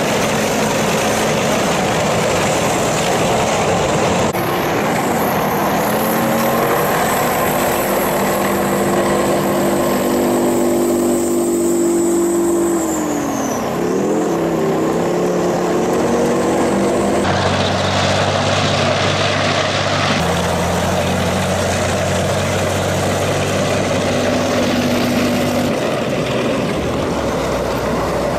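A military convoy of tracked armoured vehicles (a tank and an infantry fighting vehicle) and army trucks driving past, their engines running steadily. About halfway through, the engine pitch dips and then climbs again as a vehicle goes by close.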